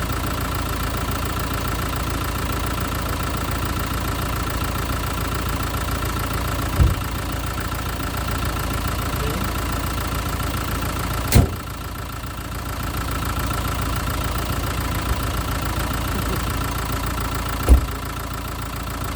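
Renault Kadjar engine idling steadily, running to charge a failing battery, with a steady high-pitched tone over it. Three short thumps come about a third of the way in, near the middle and near the end.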